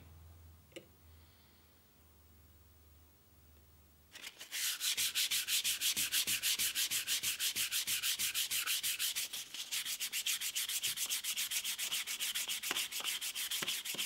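Hand-sanding of the painted motor housing shell: rapid, even back-and-forth rubbing strokes that start about four seconds in, after a few seconds of faint hum.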